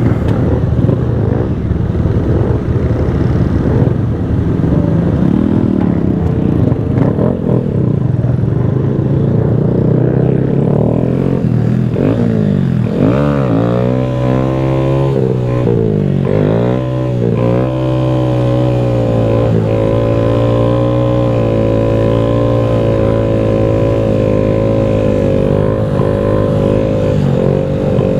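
Honda Grom's 125cc single-cylinder four-stroke engine on a brand-new bike's first ride, still being broken in. It is revved up and down a few times about halfway through, then held at a steady speed.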